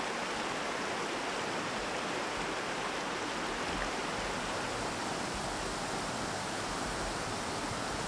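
Mountain trout stream rushing steadily over rocks, a continuous even wash of flowing water.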